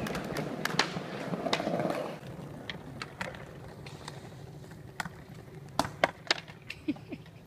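Skateboard wheels rolling over pavement with sharp clacks of the board. Later comes a scatter of hard board impacts on concrete as a skater bails and the board clatters loose, the loudest about six seconds in.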